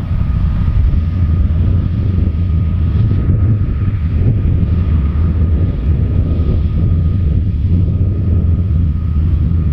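John Deere 9750 STS combine's 8.1-litre six-cylinder turbo diesel running steadily under load while harvesting soybeans, a deep continuous rumble with a faint steady whine above it.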